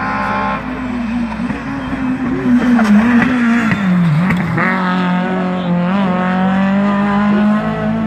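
Renault Clio rally car engine running hard as it passes. The engine note dips sharply about four seconds in as the car slows for the corner, then rises again as it accelerates away.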